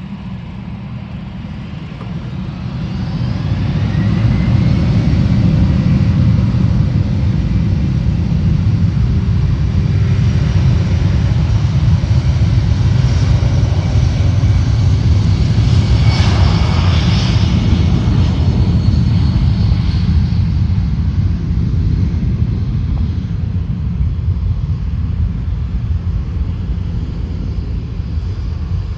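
Jet airliner taking off: its engines swell to a loud rumble with a rising whine over the first few seconds, then hold steady and ease off slightly near the end.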